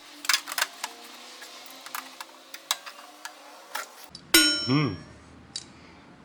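Sharp metal clicks and clanks of a locking clamp being fitted to thin sheet steel, a dozen or so over the first four seconds. About four seconds in comes a short pitched, wavering sound lasting about a second.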